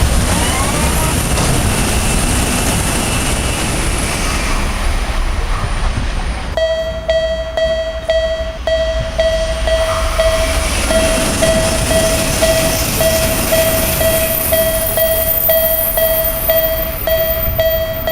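A train running past with a dense rumble. From about six seconds in, a railroad crossing warning bell rings in a steady repeating ding over the train noise.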